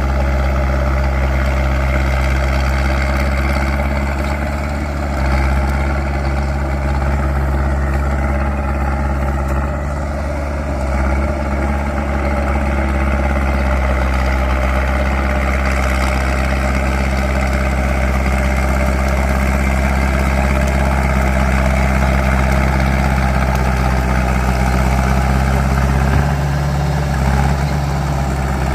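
Small bulldozer's diesel engine running steadily while the dozer scrapes ground, its note shifting briefly a few times.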